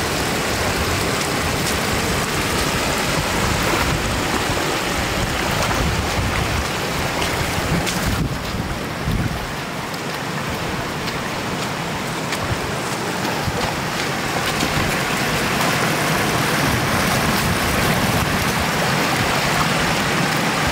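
Floodwater rushing in a steady, even wash over a road, easing a little about eight seconds in and then building again.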